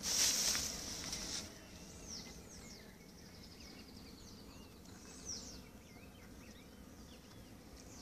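A brief rustling noise in the first second and a half, then faint birds chirping: short falling calls repeated through the rest, over a quiet rural background.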